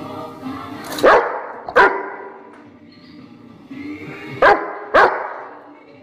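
A dog barking in two pairs of loud, sharp barks: two about a second in and two more about four and a half seconds in.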